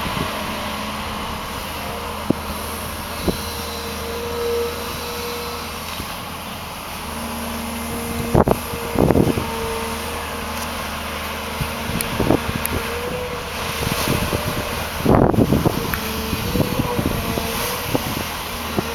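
Diesel engine of a Volvo EC210 excavator running under load, with a hydraulic whine that comes and goes as the boom and bucket move. Several sharp knocks and clatters stand out over the engine, the loudest about eight and fifteen seconds in.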